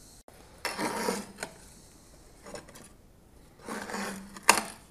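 Hand-turned iron pump-maker's reamer scraping and cutting into an oak trunk, widening a drilled hole into a tapered opening for a pump spout. It comes as separate scrapes, each about a second long, as the handle is turned, with a sharp click near the end.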